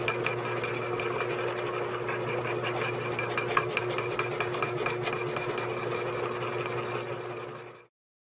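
Die filer running, its reciprocating file rasping against a workpiece held by hand: a steady machine hum under a rapid, even stroking rasp. It fades and cuts off near the end.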